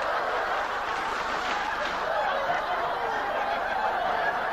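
Studio audience laughing, a long sustained wave of laughter.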